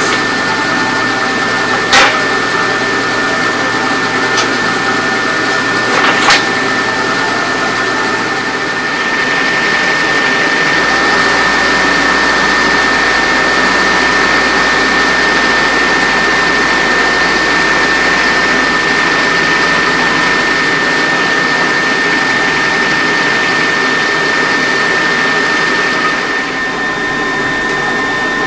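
Car engine idling, heard fast-forwarded so it comes out as a steady machine whine with a high steady tone through it. Two sharp clicks about two and six seconds in.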